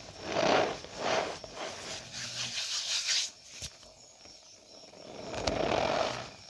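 Cornstarch powder squeezed and pressed by hand, giving crunchy squeaks in several separate squeezes, with a quieter gap in the middle.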